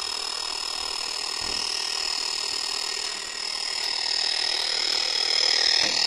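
Retekess V115 portable radio's speaker hissing with steady static and a thin high whine, tuned to a frequency with no station; it gets a little louder near the end.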